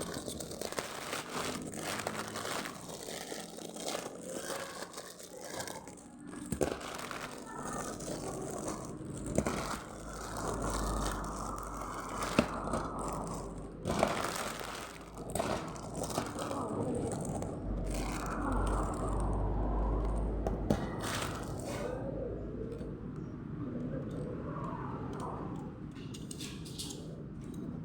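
Plastic packaging crinkling and rustling as a parcel of plastic hair claw clips is handled and opened, with scattered sharp clicks and knocks.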